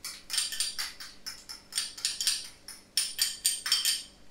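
Metal spoon scraping and clinking against a small dish and the wok as chopped green onion is spooned onto fried rice. It comes as a quick, uneven run of short scrapes that stops shortly before the end.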